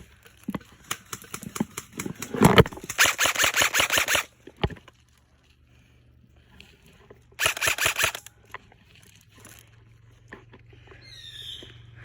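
Airsoft guns firing: scattered single shots in the first few seconds, then a rapid burst of shots about three seconds in and a second, shorter burst about seven and a half seconds in.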